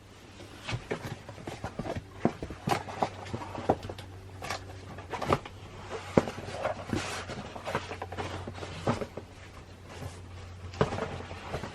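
Photo cards and their packaging being handled: irregular light clicks, taps and rustles, over a steady low hum.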